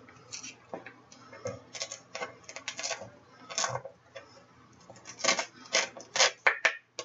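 Short light clicks and scrapes of a halved serrano pepper being handled and worked apart on a cutting board, with a quick cluster of sharper taps near the end.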